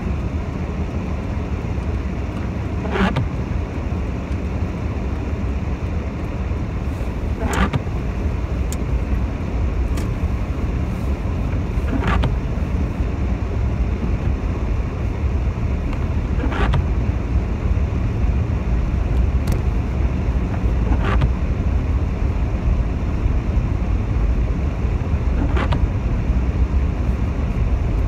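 Inside a car driving slowly on a wet road: steady engine and road rumble with tyre noise on the wet surface. A brief sharp sound recurs about every four and a half seconds.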